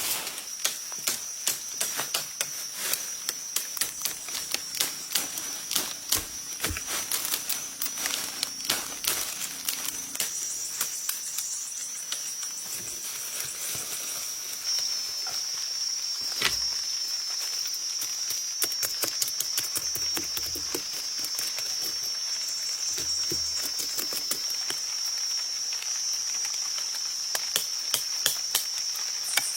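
Insects chirring in a steady, high-pitched drone, with frequent short clicks and rustles over it.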